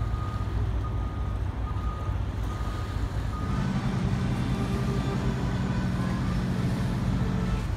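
Steady low engine rumble, with a short high beep repeating several times in the first three seconds. A deeper engine hum with a steady pitch comes in about three and a half seconds in and holds until just before the end.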